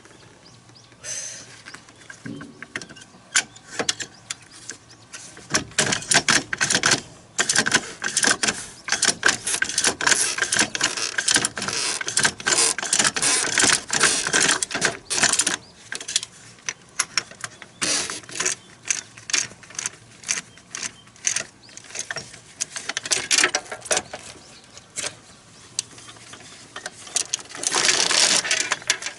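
Hand tools clicking and clinking against metal in quick, irregular runs as bolts are fitted and tightened on a snowcat's rubber crawler track joint.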